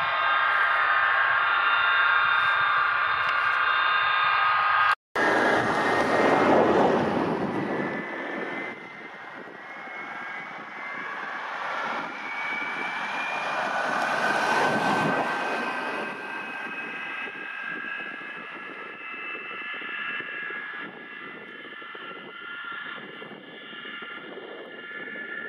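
Avro Vulcan B.2's Rolls-Royce Olympus turbojets running on the ground: a steady high whine over a roar. The sound breaks for an instant about five seconds in, then comes back louder, and the whine climbs slowly in pitch while the roar swells and eases twice.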